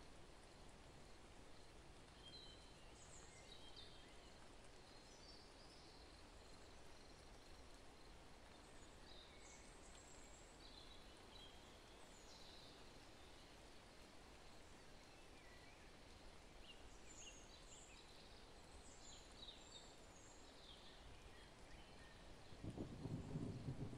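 Near silence: faint outdoor ambience with scattered, distant bird chirps. A louder low rumble comes in near the end.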